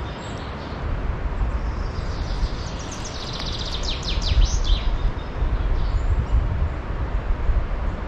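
Steady outdoor rush of noise with wind buffeting the microphone in uneven low gusts. Between about three and five seconds in, a bird sings a short burst of rapid high notes ending in quick falling sweeps.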